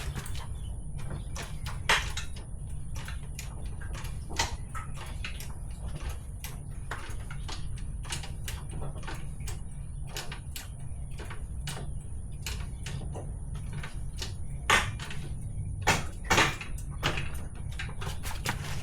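Motorcycle lift jack being worked to raise the bike, giving irregular metallic clicks and knocks, with a few louder knocks near the end, over a steady low hum.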